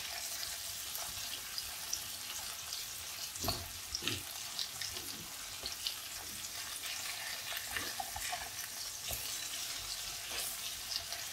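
Masala-coated sardines shallow-frying in oil in a nonstick pan over a low flame: a steady, gentle sizzle with fine crackling. A handful of sharper clicks and scrapes come from a spatula moving and turning the fish.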